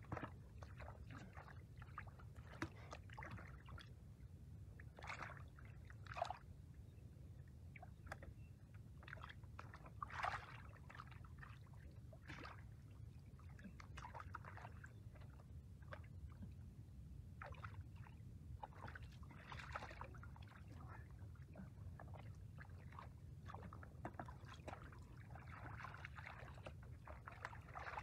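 Bare feet and hands working through shallow muddy water: soft, scattered splashes and sloshes, a few slightly louder ones about six and ten seconds in.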